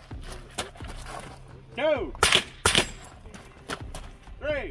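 Rifle shots from an AR-type rifle fitted with a .22LR conversion bolt: two loud cracks about half a second apart a little past the middle, with fainter shots around them. A short shouted call comes just before the pair and another near the end.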